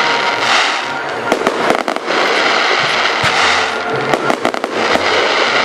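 Fireworks display: shells bursting with sharp bangs over a dense, continuous crackle.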